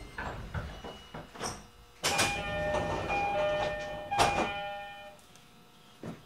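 Doors of an E231 series commuter train closing: a sudden rush of noise about two seconds in, then the door chime's two alternating notes, and a loud hit as the doors shut about four seconds in.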